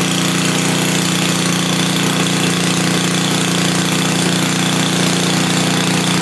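Craftsman snow blower's small four-stroke engine running steadily at a just-started cold start, on partial choke.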